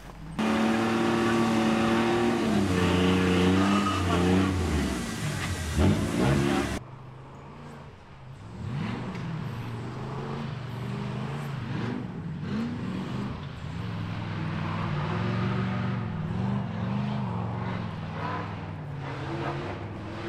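Off-road rock-racing buggy engine revving hard, its pitch jumping up and down in bursts. About seven seconds in the sound cuts to a quieter, more distant buggy engine that keeps revving up and down.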